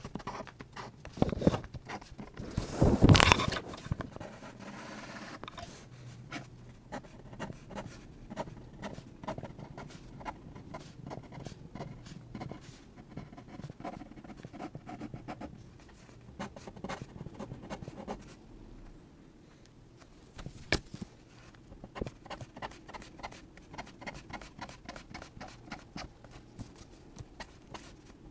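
Sakura Micron fineliner scratching across paper in quick, short hatching strokes, a rapid series of scratches, with a louder scrape about three seconds in.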